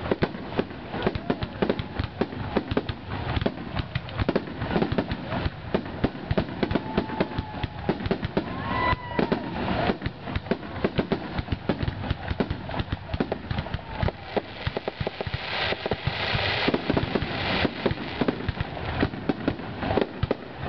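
Fireworks finale: aerial shells bursting in rapid, overlapping succession, dozens of bangs with crackling between them. About three-quarters of the way through, the crackling thickens into a dense stretch for a couple of seconds.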